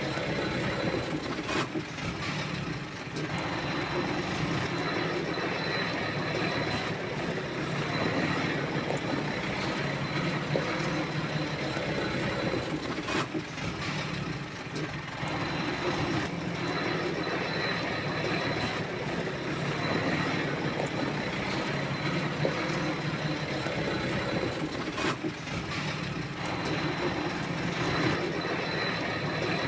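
Shantui bulldozer's diesel engine running steadily under work, easing off briefly about every twelve seconds, with a thin steady whine above it.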